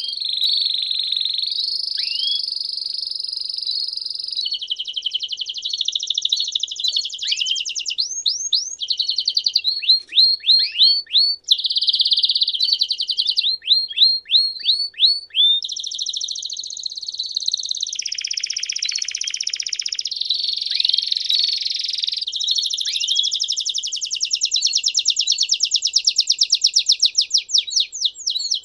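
Domestic canary singing a continuous song of sustained trills and rolls that change to a new phrase every few seconds, broken by runs of quick falling notes, with a fast run of repeated notes near the end.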